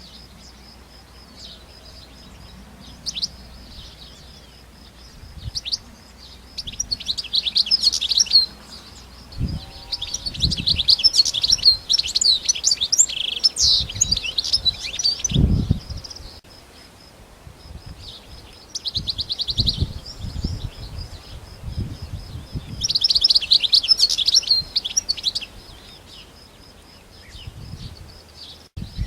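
European goldfinch singing: several phrases of quick, twittering chirps and trills, separated by short pauses. A few low thuds sound between the phrases.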